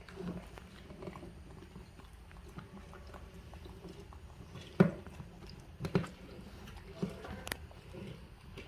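Faint rustling and scattered small knocks and clicks as an orange is handled and eaten by a pet monkey, the sharpest knock about five seconds in.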